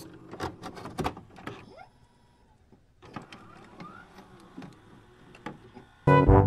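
Electronic glitch sound effects for a loading-screen animation: scattered clicks and short rising tones, broken by about a second of near silence. Music starts loudly near the end.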